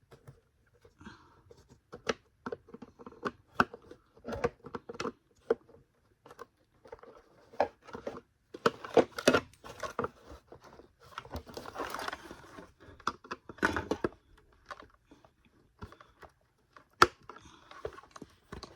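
Irregular plastic clicks, knocks and scraping as a flathead screwdriver pries a vacuum cleaner's power switch out of its plastic housing, with a sharp snap about three-quarters of the way through.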